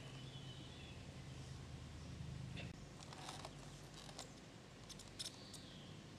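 Faint outdoor background: a low hum that dies away a little under halfway through, a few scattered light clicks, and a couple of faint high chirps near the start and again near the end.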